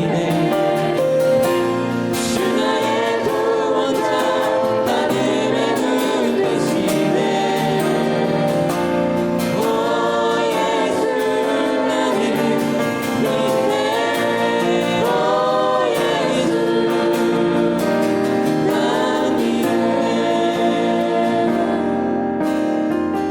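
A group of voices singing a Christian worship song together.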